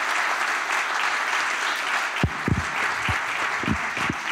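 Audience applauding steadily, with a few brief low thumps about halfway through.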